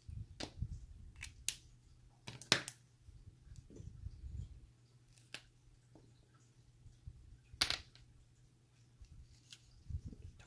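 Small clicks and taps of coloured pencils, a water-brush pen and a plastic stencil being handled on a tabletop: a handful of sharp ticks scattered through, the loudest about two-thirds of the way in, over a faint steady low hum.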